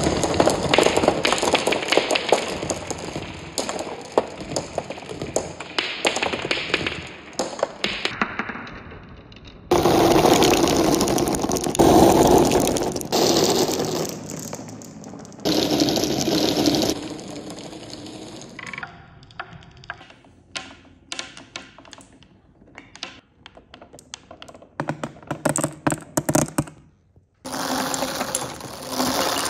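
Glass marbles rolling and clacking against each other and the tracks of a marble run. Dense rolling clatter for the first half, and separate sharp clicks and knocks in the second half.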